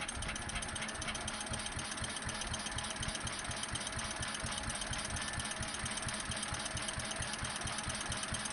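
Fowler 1PA stationary engine running on a Solex carburettor, with a steady, even beat of about six firings a second.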